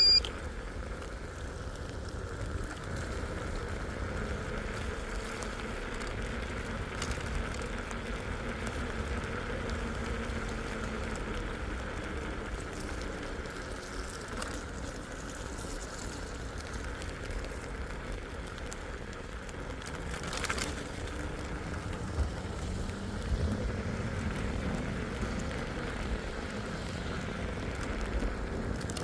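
Vehicle driving on a wet road in the rain: a steady wash of rain and tyre spray over a low rumble. A short, sharp high tone sounds right at the start.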